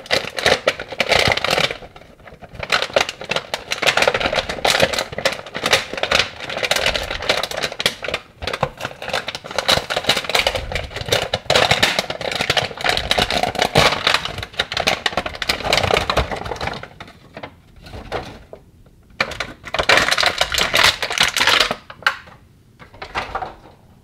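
Plastic packaging crinkling and crackling in dense runs as a small toy pet is unwrapped by hand, with a few short pauses near the end.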